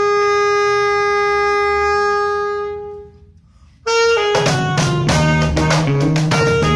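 An alto saxophone holds one long note, which dies away about three seconds in. After a brief pause the band comes back in about four seconds in, with cajon strokes, electric bass and short saxophone notes.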